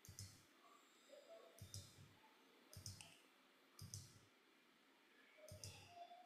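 Faint computer mouse clicks: five short clicks about a second apart, each a quick pair of sharp strokes.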